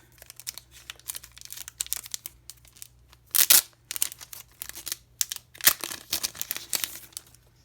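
Packaging crinkling and tearing as a photo card set is unwrapped by hand, in a run of short scratchy rustles and clicks with two louder rips, one about three and a half seconds in and one near the six-second mark.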